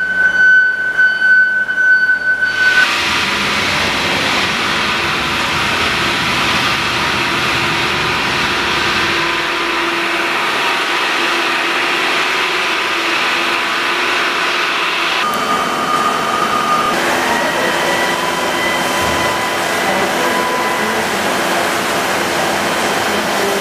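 Haas GR-510 CNC gantry router running: a steady high whine for the first few seconds, then an even rush of noise with steady whining tones over it, which change pitch about 15 and 17 seconds in.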